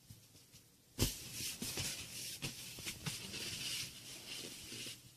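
A kitten's claws scratching and tapping on a rubber balloon as it paws at it. The sound starts suddenly about a second in and keeps up as scratchy rustling broken by sharp clicks.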